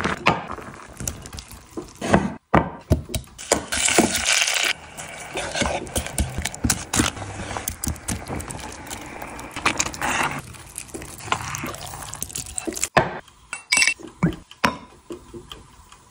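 Close-miked kitchen sounds cut together in short takes: wet stirring and scraping of thick cheesy pasta and sauce, with utensils clinking and knocking against the pots and bowls.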